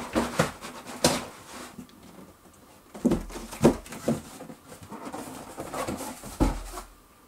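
Cardboard shipping box lifted up off a subwoofer packed in expanded-foam end blocks: cardboard rubbing and scuffing against the foam, with several sharp knocks, the last one, near the end, with a low thud as the empty box is set down.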